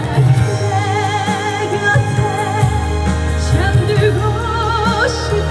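A slow ballad's accompaniment playing a melodic passage, its lead line held with a wide vibrato over a steady bass.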